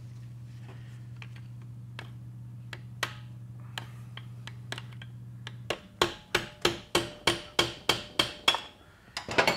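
Metal-on-metal tapping on a TH350 automatic transmission's governor cover to knock it off the case: about a dozen sharp, ringing strikes at roughly four a second, with a quick flurry near the end. A low steady hum underneath stops just before the tapping starts.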